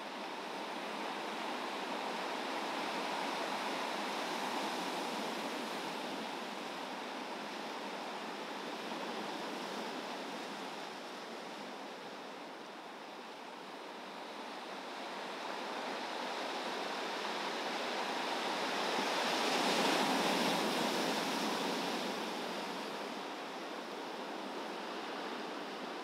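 Ocean surf breaking on a beach of volcanic rock and sand, with wind: a continuous rush that rises and falls slowly and is loudest about twenty seconds in.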